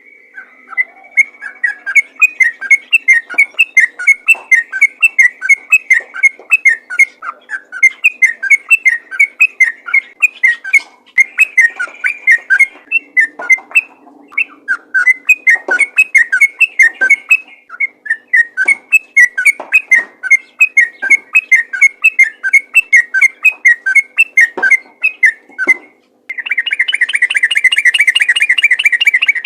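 Yellow-vented bulbul (trucukan) in full, lively song: a fast, unbroken string of short, loud whistled notes, several a second. After a brief pause near the end it switches to a dense, rapid trill.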